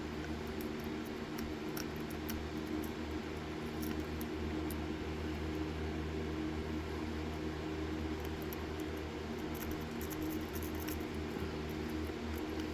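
Faint, scattered metallic clicks and scratching of a lock rake working the pin stack of a Federal puck lock core, over a steady low hum.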